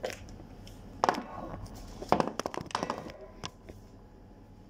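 Kitchen handling noises while meat is threaded onto bamboo skewers: a few sharp taps and knocks on the counter, bunched together around the middle.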